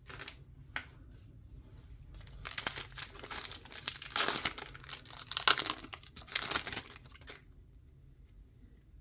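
Foil trading-card pack wrapper being torn open and crinkled: a short rustle and a click at the start, then a dense crackling from about two and a half seconds in to about seven and a half seconds.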